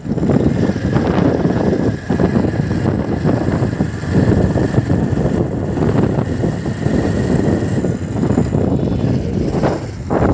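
Running engine and road noise of a moving vehicle, heard from on board, with a faint steady whine through most of it.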